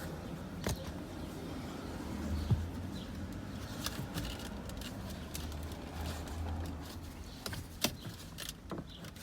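Scattered clicks and knocks of plastic interior trim being handled and pried loose, over a steady low hum.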